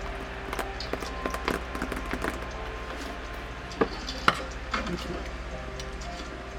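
Taps, clicks and light rustles of hands handling stationery and its packaging during an unboxing, with two sharper clicks a little under four seconds and about four and a half seconds in.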